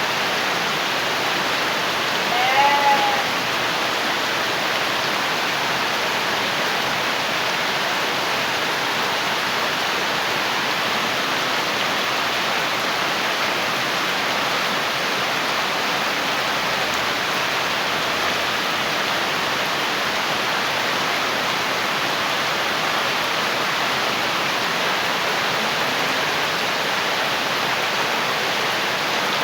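Steady, heavy rain falling without a break, with one short goat bleat about two and a half seconds in.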